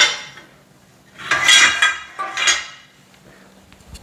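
Steel bed-frame parts clanking together as they are handled: a sharp clank right at the start, then two louder metallic clangs with ringing tails about a second and a half and two and a half seconds in.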